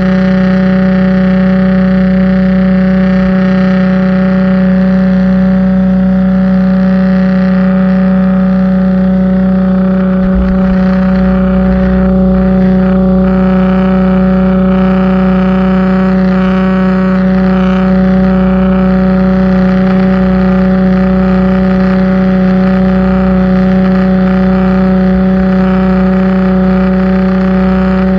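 Pressure washer running steadily: a constant, unchanging pitched hum with a hiss over it.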